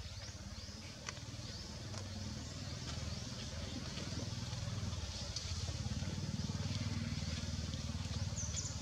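Outdoor ambience: a low rumble that grows louder partway through, under faint high chirping.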